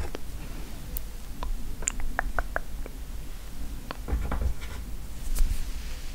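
Light clicks, taps and soft scratching from handling a mug of hot chocolate topped with marshmallows, with a quick run of ticks about two seconds in and a few more later.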